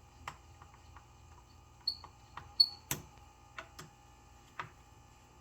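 Scattered clicks and light knocks of tools and parts being handled as the belt sander is taken apart, with two short high metallic pings around two seconds in and a sharp click about three seconds in.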